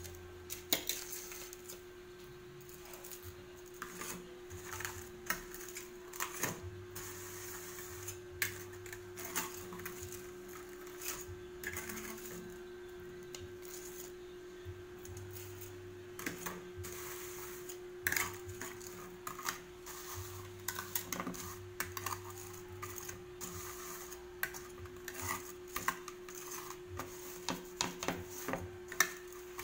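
Kitchen tongs clicking and tapping irregularly against plates as banana fritters are turned and rolled in sugar, with a steady low hum underneath.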